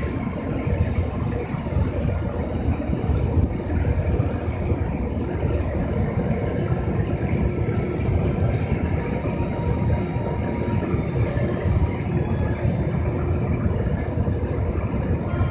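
EH200 electric locomotive running steadily at a standstill and starting to creep forward, its cooling blowers and electrical equipment giving a loud, even hum with a heavy low rumble and a few faint steady tones.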